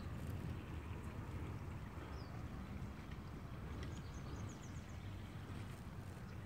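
Steady low outdoor rumble, like wind noise on the microphone, with faint high bird chirps: one about two seconds in and a quick run of about six near the middle.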